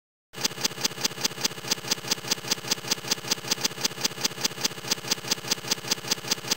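Typewriter sound effect of a slide's letter-by-letter text animation: a steady run of sharp key clacks, about five a second, that starts and cuts off suddenly.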